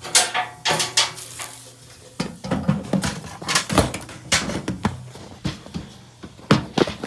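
A run of irregular knocks, clicks and light clatter, over a dozen of them, over a steady low hum.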